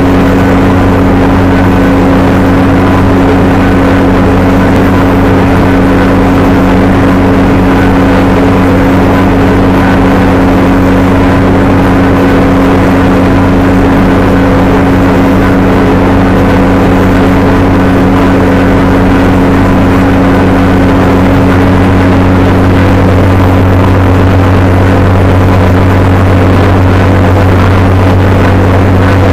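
Tracked drilling rig running under load while drilling through a buried boulder: a loud, steady engine and drill drone with a deep hum that holds unchanged throughout.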